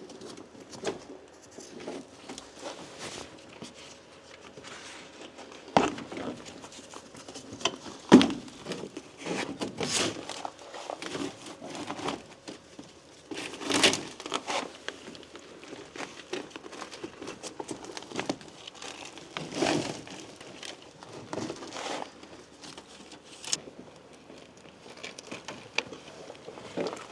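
Old floor matting and loose debris being pulled and rummaged out of a truck cab: irregular crinkling and rustling with scattered clicks and a few sharper knocks.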